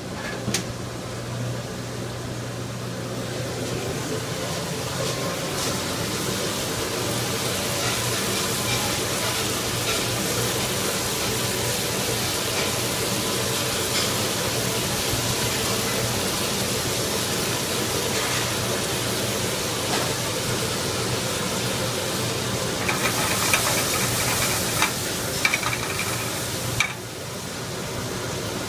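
Food sizzling in sauté pans over gas burners, a steady frying hiss over a low hum, with a few sharp clinks of metal pans near the end.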